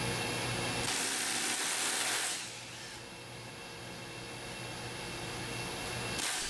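Steady machinery hum with two bursts of hissing: a longer one about a second in and a short one near the end.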